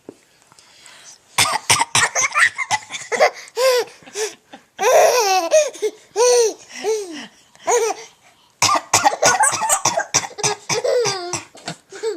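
Someone coughs a few short, sharp times and a baby answers with peals of high-pitched laughter. About nine seconds in the coughs come again, and the baby laughs once more.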